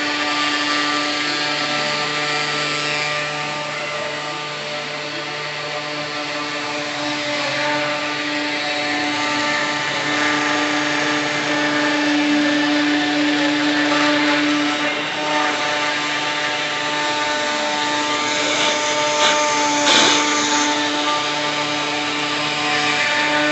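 NEMA 23 stepper motors driving the axes of a homemade CNC machine, whining in steady tones that change pitch with each move, with short pitch sweeps as they speed up and slow down.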